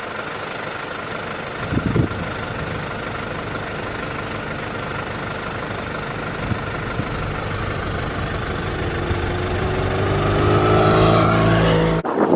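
BMW R1100RT's boxer twin engine running under way, with a brief thump about two seconds in. From about nine seconds in it pulls up through the revs, rising in pitch and getting louder.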